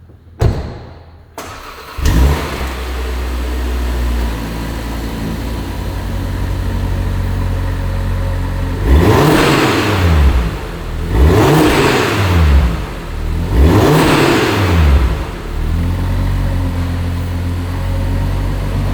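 Audi RS3's 2.5-litre turbocharged inline five-cylinder starting, catching with a flare about two seconds in and settling into a steady idle. It is then revved three times in quick succession, each rev rising and falling back to idle.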